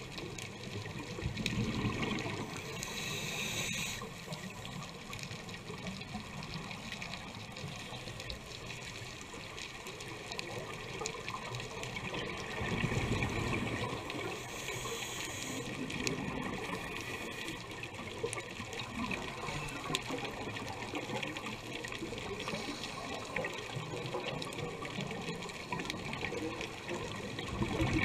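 Scuba diving heard underwater: a steady muffled wash of water, with louder bubbling surges a few times as divers breathe out through their regulators.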